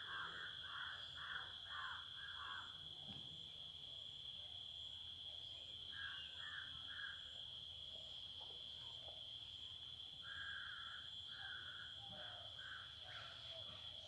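A steady, high-pitched insect drone. Over it a bird calls in runs of short repeated notes: at the start, again around six seconds in, and for a longer run near the end.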